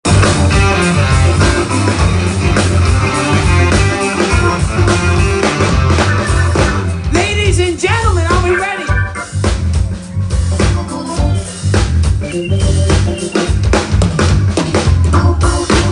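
Live rock band playing: electric guitars, a keyboard with an organ sound, and a drum kit keeping a steady beat. About seven to nine seconds in, a run of bending, sliding notes stands out.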